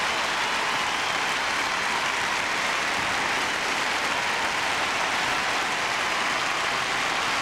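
A large audience applauding, a dense, steady clatter of many hands clapping.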